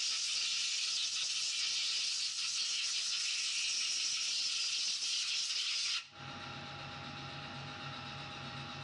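Compressed-air blow gun hissing steadily as it blows chips off a machined aluminium part, cutting off abruptly about six seconds in. After it, a quieter steady machine hum remains.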